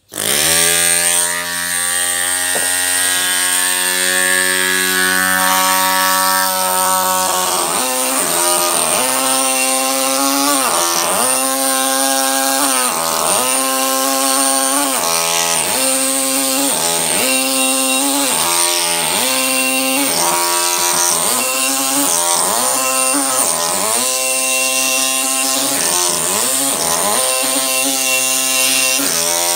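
Pneumatic carving hammer driving a chisel into stone. It starts as a steady buzzing drone, and from about eight seconds in it pulses, the pitch dipping and recovering roughly once a second as the chisel bites.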